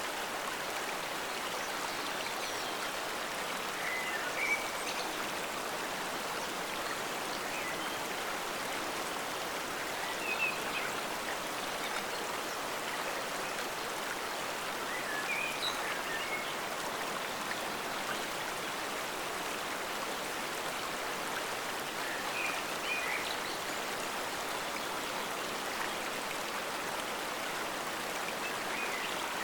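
Forest stream flowing: a steady, even rush of running water, with a few brief high chirps standing out above it now and then.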